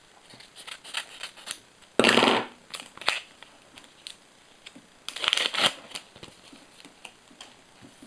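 Sticker packet being torn open and its stickers handled: two short bursts of rustling about two and five seconds in, with light clicks and taps between.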